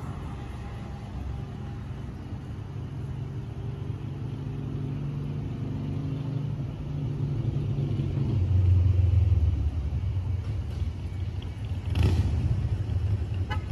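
Low rumble of road traffic with a vehicle engine's hum, growing louder about eight seconds in. A single sharp knock comes near the end.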